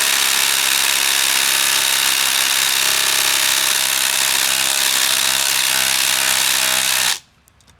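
Ridgid cordless impact wrench in speed 3, hammering steadily on a lug nut to tighten it toward about 170 ft-lb, then stopping suddenly about seven seconds in.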